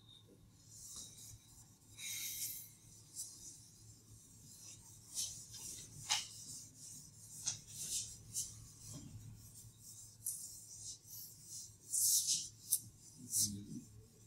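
Chalkboard being wiped clean by hand with an eraser pad: a string of short, irregular rubbing swipes across the board, loudest about two seconds in and again near the end.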